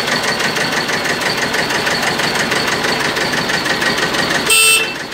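Two-cylinder diesel engine of a 2001 TAFE 25 DI tractor idling with a steady, even pulse, heard close to the bonnet and exhaust stack. Near the end a brief, loud tone sounds over it.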